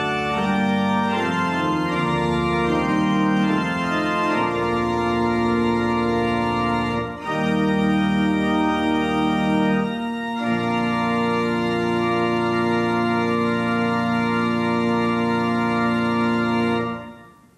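Church organ playing the closing phrase of a hymn in sustained chords, ending on a long held final chord that stops shortly before the end.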